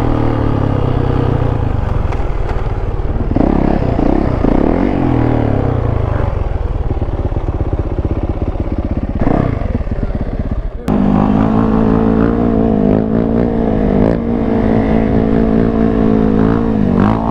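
Yamaha YZ450F's single-cylinder four-stroke engine running as the dirt bike is ridden, revs rising and falling, with wind on the microphone. About eleven seconds in the sound cuts abruptly to a steadier engine note that dips briefly near the end.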